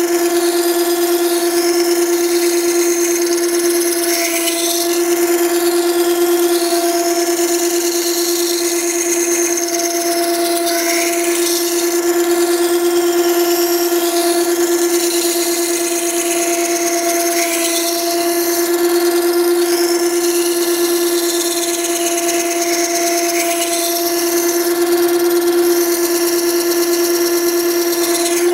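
Makita 9820 electric water-stone sharpener running, its coarse 120-grit wheel rough-grinding the bevel of a steel plane iron held in a jig. A steady motor hum runs under a rasping, scraping hiss that swells and fades as the iron is worked across the wheel.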